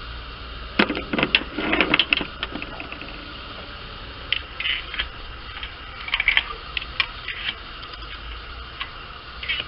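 Irregular clicks and light metallic clinks of hand tools and metal parts being handled, busiest about a second in and again around the middle.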